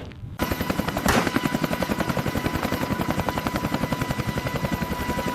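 AH-64 Apache attack helicopter in flight: a fast, even rotor-blade beat over a steady high turbine whine. It starts abruptly about half a second in.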